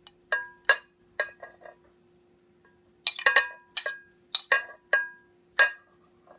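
A utensil clinking against a baking dish while cut-up chicken is spread over pasta: a series of sharp clinks, each with a short ring. A few come in the first two seconds, and a quicker run starts about three seconds in.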